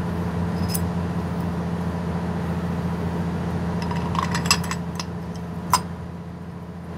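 Metal parts of a Suzuki 40 hp outboard's gearbox clinking as they are handled and fitted together by hand: the propeller shaft, its bevel gear and the clutch dog. A few light clinks come about four seconds in and one sharper click near six seconds, over a steady low hum.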